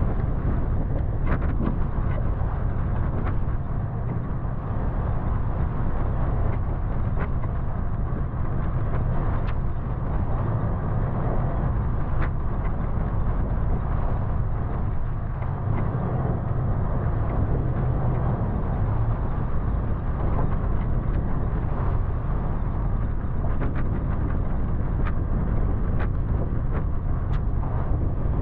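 Toyota FJ Cruiser's 4.0-litre V6 and tyres, a steady low rumble as it drives slowly along a dirt trail, with scattered sharp clicks and knocks throughout.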